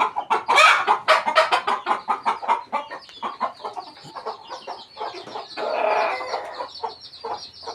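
Chickens clucking in a quick, busy run of short calls, with one longer call about six seconds in and a thin high chirping behind them.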